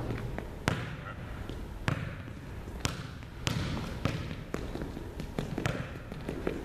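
Sneakers tapping on a hardwood gym floor as an agility-ladder footwork drill is run, many small quick steps with louder thuds about once a second.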